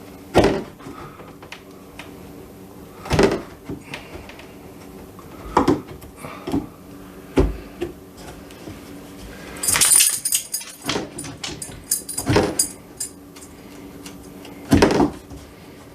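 Wood chisel knocking and scraping into the wooden edge of a door, paring out a recess so the new latch plate fits: about seven sharp knocks a few seconds apart, with a run of scraping and scratching about ten seconds in.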